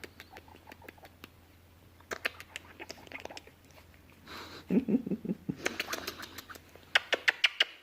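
Shiba Inu puppy licking and mouthing during a cuddle: quick wet clicks and smacks, with a fast run of louder ones near the end. About five seconds in there is a brief low grunting sound.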